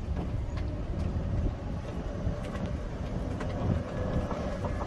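Small electric cart driving along a road: a steady low rumble of the wheels with wind on the microphone, a faint steady whine and a few light rattles.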